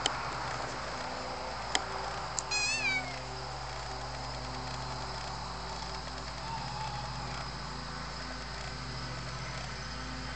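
A four-month-old chocolate point Birman kitten gives one short, high-pitched meow about two and a half seconds in, its pitch wavering and then dropping at the end. Three sharp clicks come just before it, over a steady low hum.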